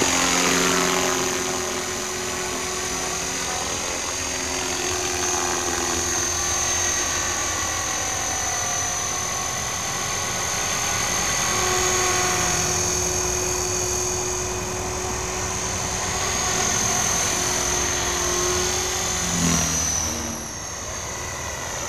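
Align T-Rex 450 XL electric model helicopter in flight: a steady high-pitched whine from its motor and rotor, with lower tones that slowly rise and fall as it manoeuvres and the sound swells and fades.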